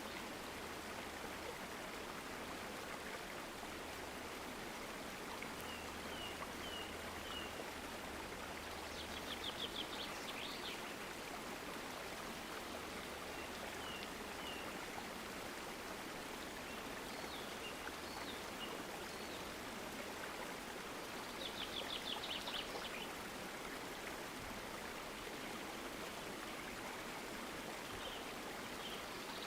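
Steady rush of flowing stream water with birds calling over it: scattered short chirps, and a fast high trill about nine seconds in and again around twenty-one seconds.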